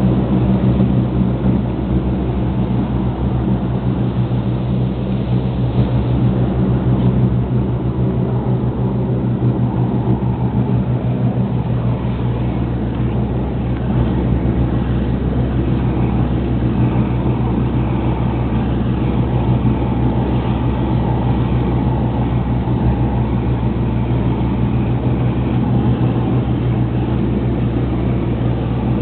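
Lobster boat's engine running steadily at cruising speed underway, a constant low drone, with rushing water from the hull and wake.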